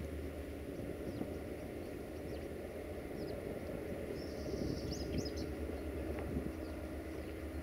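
Distant CFR Class 65 'Jimmy' diesel locomotive approaching slowly at the head of a passenger train, its engine a steady low rumble. Birds chirp throughout, with a short buzzy trill about four to five seconds in.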